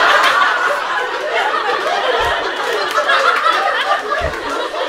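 A live comedy-club audience laughing loudly and continuously in response to a punchline, many voices overlapping.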